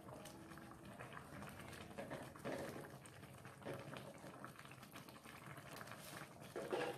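Faint bubbling of a thick coconut-milk fish stew simmering in a frying pan, with a few soft scrapes and knocks of a wooden spatula stirring through it.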